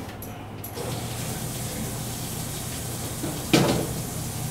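A steady hiss of running water or air begins about a second in and holds without change. A single sharp knock comes about three and a half seconds in.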